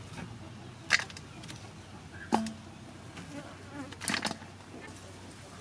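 Chopped herbs and sliced shallot dropped into a large aluminium bowl, giving a few light clicks and taps on the metal: one about a second in, one with a brief ring a little later, and a cluster near the end. Insects buzz steadily throughout.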